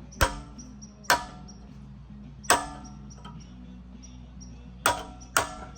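Five hammer blows on metal at uneven intervals, each with a short metallic ring, striking at a stuck engine oil pump that is still held by a 10mm bolt.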